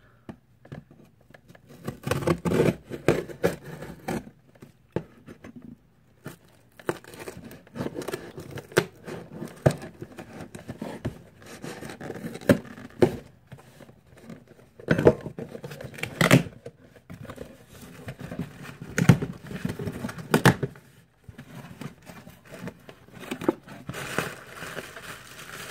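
Cardboard shipping box being cut and torn open by hand: irregular ripping, scraping and crackling of tape and cardboard with sharp rips, and crinkling of plastic packing near the end.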